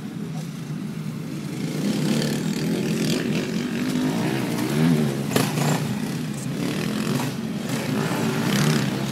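Dirt bike engines revving up and down as the off-road motorcycles ride the course. The pitch rises and falls with the throttle, with a clear rise and fall about five seconds in.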